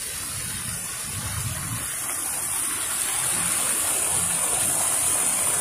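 Street fountain's water jets splashing into the basin: a steady rushing of water that grows slightly louder.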